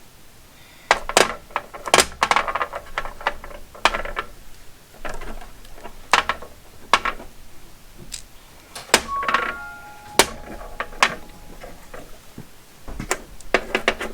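Small steel bolts being handled and set down on a hard surface: a run of irregular clicks and clinks, one with a short metallic ring about halfway through.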